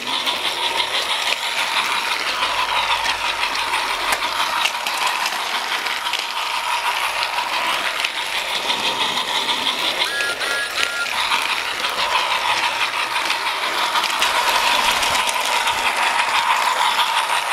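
Battery-powered Thomas & Friends Track Master toy engine running on plastic track: a small electric motor whining steadily over a fast rattling clatter of its gears and wheels.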